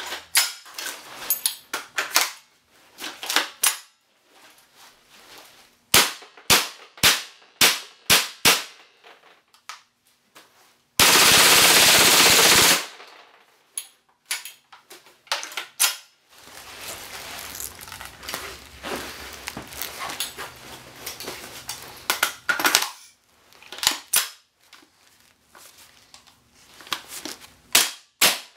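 G&G CM16 Raider gas blowback airsoft rifle firing single shots in runs of several, each a sharp pop, with short pauses between runs. About eleven seconds in, a loud continuous burst of noise lasts nearly two seconds.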